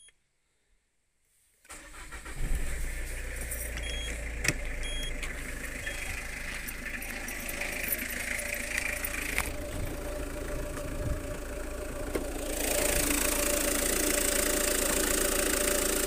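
Peugeot Partner engine cranking and starting about two seconds in, then idling steadily. The idle gets louder about twelve seconds in.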